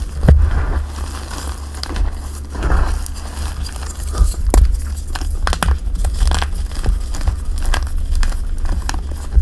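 Dyed gym chalk and cornstarch being crushed and crumbled by hand close to the microphone: dry crunching and crackling with many sharp snaps, over a low handling rumble.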